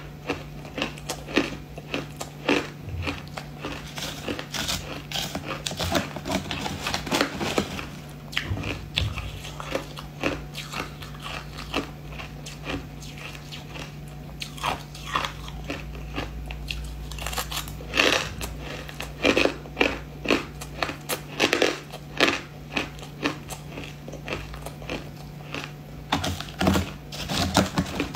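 Crushed frozen ice being bitten and chewed close to the mouth: sharp, irregular crunches that come in quick clusters, loudest near the middle and again near the end. A faint steady low hum runs underneath.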